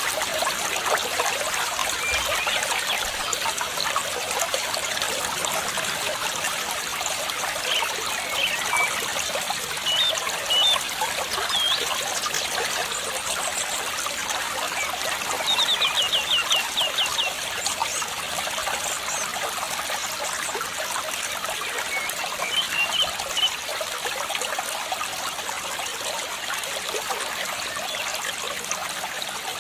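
Water trickling steadily, with small birds chirping now and then and a quick trill of rapidly repeated notes about halfway through.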